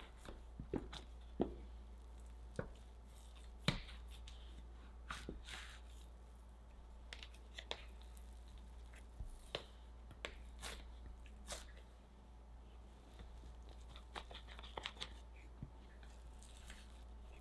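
Plastic bench scrapers scraping and tapping on a silicone mat while squaring and cutting soft chocolate scone dough, with quiet squishes of the dough being pressed and lifted. The clicks and scrapes come irregularly, a handful of sharper taps among them, over a faint steady low hum.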